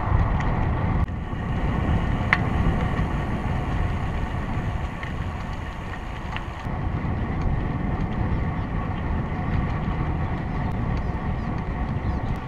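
Wind buffeting the microphone of a bicycle-mounted camera while riding, with tyre and road noise under it: a steady, loud rushing with a deep low rumble.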